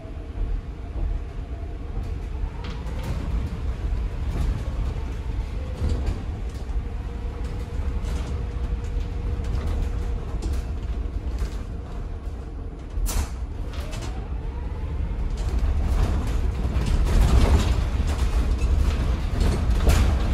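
Inside an ADL Enviro 200 EV electric bus on the move: low road rumble with interior panels and fittings creaking and rattling, and the whine of its BYD in-wheel electric motors, which rises in pitch as the bus accelerates, about two seconds in and again near fourteen seconds.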